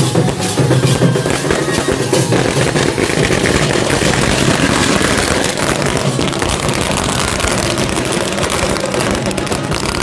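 A long string of firecrackers going off in a rapid, continuous crackle, with drums beating alongside.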